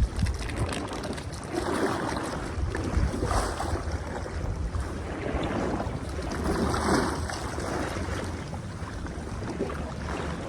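Water sloshing and lapping in irregular swells, with wind rumbling on the microphone.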